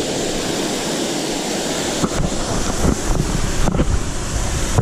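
Steady rush of turbulent, well-oxygenated creek water, with a few short splashes and knocks in the second half as a bass is let back into the current.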